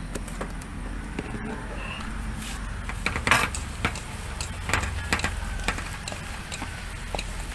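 Scattered knocks and clinks from a cook handling a cast-iron Dutch oven and its utensils during food preparation, the loudest about three seconds in, over a steady low hum.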